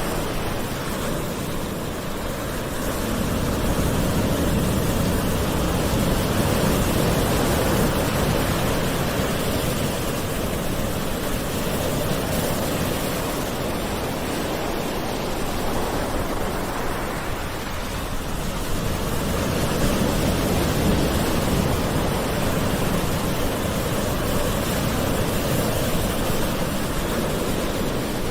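Gentle sea waves washing in, a steady rush of surf that swells and eases slowly every several seconds.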